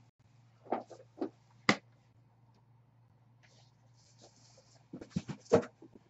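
Sealed cardboard trading-card hobby boxes being handled and set down on a stack: three short knocks about a second in, then a quick cluster of knocks about five seconds in, over a faint steady hum.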